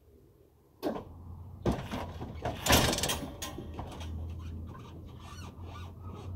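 Hydraulic lowrider suspension of a 1986 Nissan 720 pickup letting the raised front end down: a click about a second in, then hissing and squeaking creaks for about two seconds, then a low steady hum.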